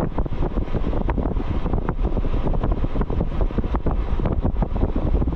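Jeep driving along a road: a steady low engine and road rumble with wind buffeting the microphone and many short rattles and knocks.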